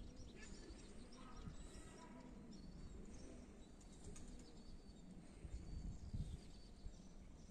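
Birds chirping and twittering faintly in short, scattered calls over low, steady outdoor background noise.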